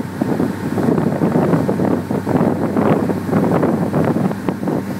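Wind buffeting the microphone on an open motorboat running fast, over the steady hum of the boat's engine and the rush of the hull through the water.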